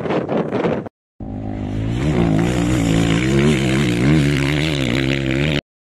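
A rally truck's engine and dust-laden wind on the microphone as it charges past, cut off after about a second; then a steady engine drone whose pitch wavers gently up and down, cut off shortly before the end.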